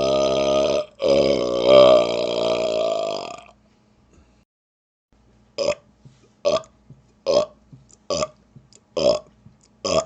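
A man belching on command: a long, drawn-out monster burp, broken once about a second in and carried on to about three and a half seconds. After a short pause comes a run of short rapid-fire burps, a little more than one a second.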